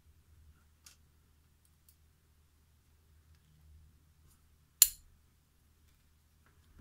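A single sharp metallic click about five seconds in, with a few faint ticks before it, as a small brass lock cylinder and its parts are handled. A low steady hum sits underneath.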